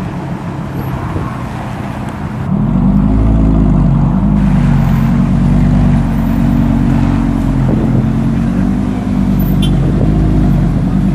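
Audi R8 V10 Spyder's 5.2-litre V10 starting up about two and a half seconds in: a sudden loud start that flares up in pitch, then settles into a steady, deep idle.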